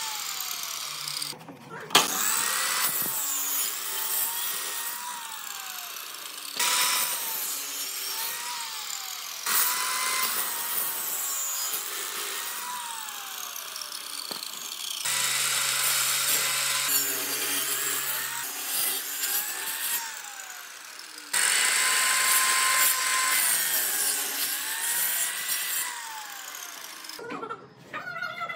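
Power tools sawing and shaping wood, heard as a string of short clips whose noise changes abruptly every few seconds.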